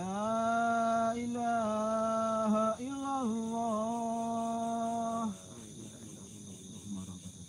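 A man's voice chanting the adhan, the Islamic call to prayer, holding one long, drawn-out note for about five seconds. The pitch stays steady, with a short rise and a wavering turn in the middle, then the note stops.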